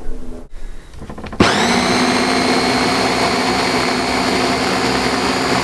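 Small electric food processor (a mini chopper bowl with its motor unit on top) switching on about one and a half seconds in, spinning up quickly and then running steadily as it purées a thick roasted-eggplant mixture.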